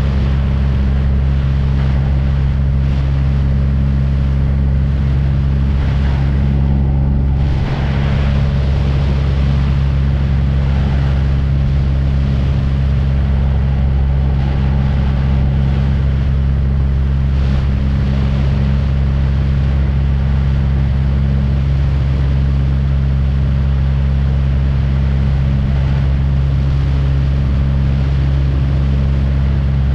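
Small aircraft's engine running with a steady, loud drone.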